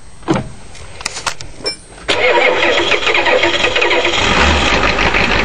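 International 6.9L IDI diesel V8 of a 1985 Ford E350 van cold-starting: a few clicks, then it catches about two seconds in and runs loud and steady. Its clatter is a little heavy, which the owner takes as a sign of retarded injection timing after fitting rebuilt injectors.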